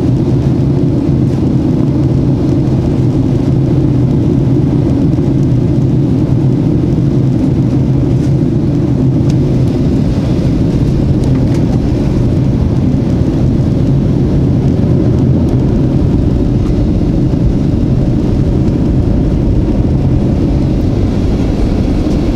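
Cabin noise inside a Boeing 737-800 on approach: a loud, steady low roar of airflow and CFM56-7B engines, with a little more hiss near the end.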